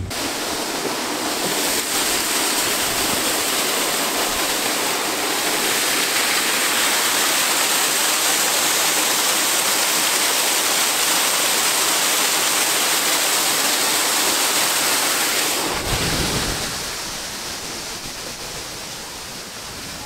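Water rushing steadily over a dam, an even, hissing wash of falling water that grows fainter over the last few seconds.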